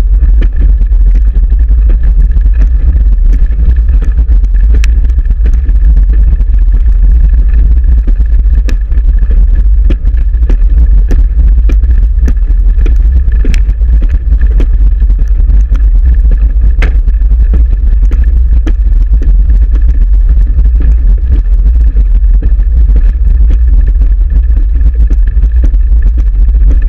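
Steady heavy rumble of wind and vibration on a camera mounted to a racing wheelchair rolling fast on a rubber running track, with frequent small clicks and rattles.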